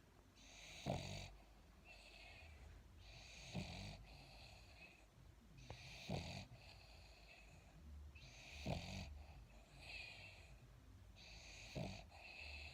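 A sleeping dog snoring: a short snore about every two and a half seconds, five in all, with hissing breath in and out between.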